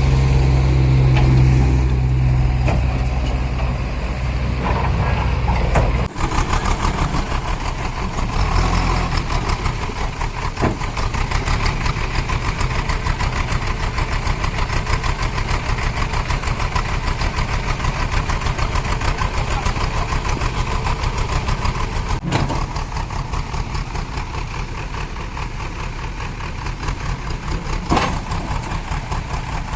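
Tipper truck's diesel engine running with an even, rapid beat. About six seconds in, a heavy low rumble stops abruptly and the engine settles into a lighter, steady run.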